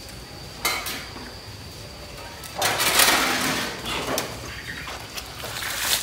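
A plastic bucket knocks, then water from it rushes out and splashes onto a concrete floor, loudest about two and a half seconds in and tailing off unevenly.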